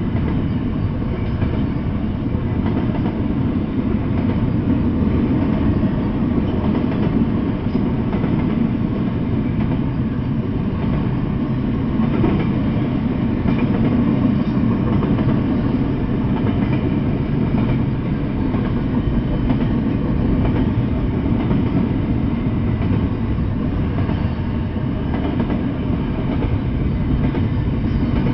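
Double-stack intermodal container train rolling past on the rails: a steady, even rumble of wheels and cars that does not let up.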